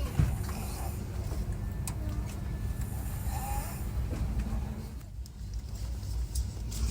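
A stranger in a train carriage snoring, the snores coming and going over the steady low rumble of the moving train.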